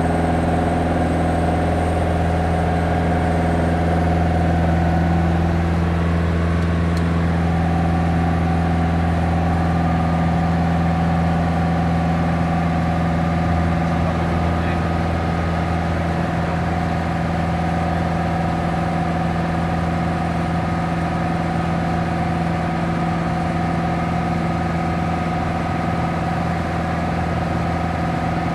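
Light touring aircraft's engine and propeller droning steadily, heard from inside the cabin, with a slight change in note about six to eight seconds in.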